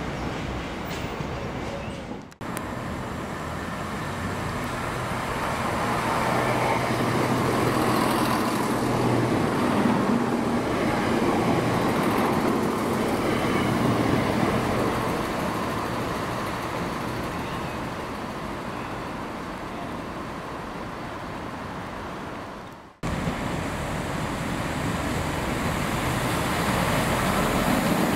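A Transport for Wales Class 170 diesel multiple unit arrives with its engines running, growing louder to a peak around ten seconds in and then easing as it slows. The sound cuts off abruptly just after the start and again about 23 seconds in, and after the second cut a GWR Turbo diesel multiple unit is heard arriving.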